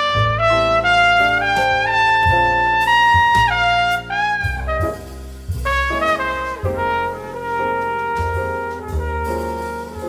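Instrumental background music: a lead melody of held notes over low bass notes.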